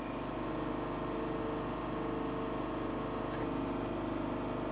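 Steady machine hum of laboratory equipment, with several steady tones and no change in pitch or level.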